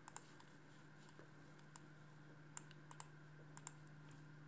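Faint clicks of a computer mouse and keyboard, a handful of single clicks and quick pairs spread through, over a faint steady low hum.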